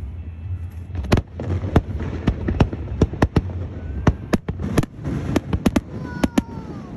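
Fireworks display going off: a rapid run of sharp bangs and cracks, one after another, starting about a second in.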